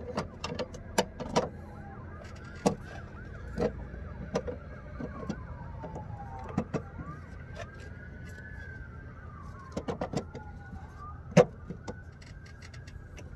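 Scattered metal clicks and knocks of a strut tower brace being fitted and adjusted on its strut towers, irregular and sharp, with one louder knock near the end. Faint wavering, gliding squeak-like tones run underneath.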